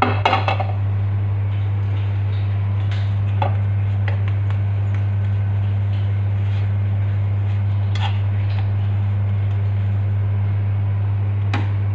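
A metal spoon clinks and scrapes against a non-stick frying pan a handful of times while a pancake is worked and turned, over a steady low hum.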